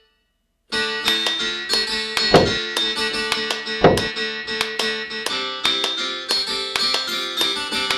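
Background music on plucked acoustic guitar, starting after a moment of silence under a second in, with two heavy thumps about a second and a half apart.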